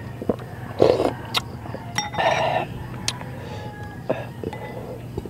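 A metal spoon clinking against a small glass bowl several times while scooping taro soup, with a couple of short slurps of broth between the clinks.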